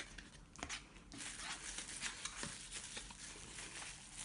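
Small puzzle-cube box being opened by hand: a few light clicks and taps, then soft rustling of the packaging from about a second in.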